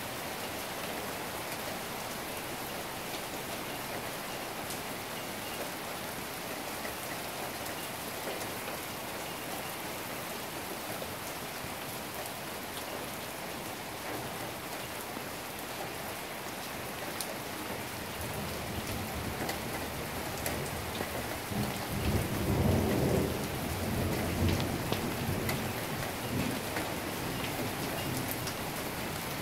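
Steady heavy rain falling throughout, with a long rumble of thunder that builds about two-thirds of the way in, peaks and then fades away over several seconds.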